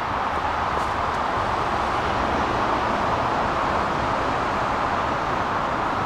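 Steady hiss of road traffic, tyres on pavement, with a low rumble underneath.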